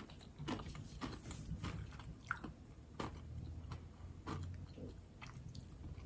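A person chewing a crunchy ridged potato chip, close to the microphone. Faint, irregular crunches.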